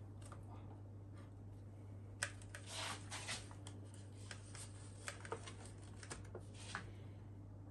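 Plastic packaging of sliced cheese crinkling and rustling as a slice is pulled out, in a scatter of short crackles and clicks, over a steady low hum.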